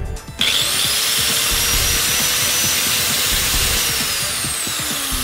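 Electric angle grinder switched on about half a second in and running at full speed with a steady high whine: a test run after reassembly and servicing. Its pitch begins to fall near the end.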